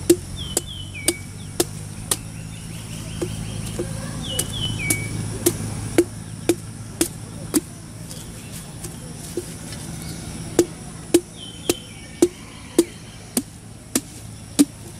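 A knife blade chopping into a green coconut's husk: sharp strikes with a dull thud, about two a second, in runs with short pauses between them.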